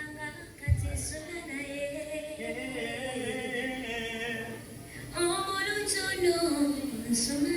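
A voice singing a held, gliding melody with music, and a short low thud just under a second in.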